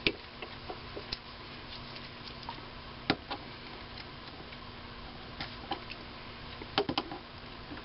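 Sparse light clicks and taps of a micrometer being handled and closed onto a freshly turned part in a small lathe's chuck, the sharpest about three seconds in and a pair near seven seconds, over a faint steady hum.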